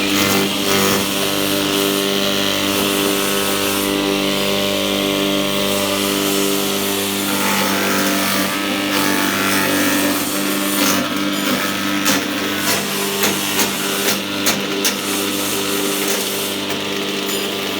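Motor-driven banana-stem and grass chopping machine running with a steady hum, its blades cutting through material, with irregular knocks and bumps in the second half.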